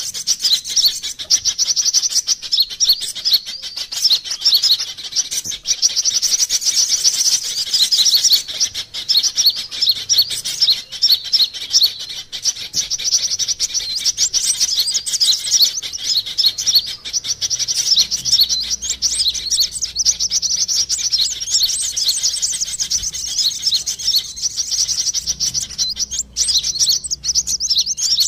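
Fast, high-pitched twittering and chirping of sunbirds, a lure call meant to draw sunbirds in, in dense runs broken by short pauses.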